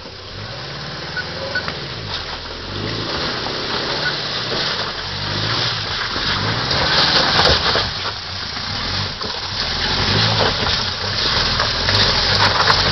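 Subaru EA81 flat-four engine revving up and down under load as the 4WD sedan crawls up a steep, slippery dirt slope, with tyre and drivetrain noise. The sound grows louder as the car comes closer.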